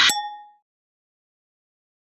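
Edited-in outro sound effect: a rising whoosh that stops just as it peaks, ending in a short chime that dies away within about half a second, followed by digital silence.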